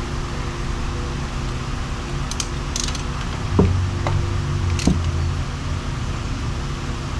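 A wrench clicking and clanking on an old threaded plug in a cast-iron engine block as it is worked back and forth to break it loose. There are a handful of short metallic clicks and knocks in the middle, over a steady low hum.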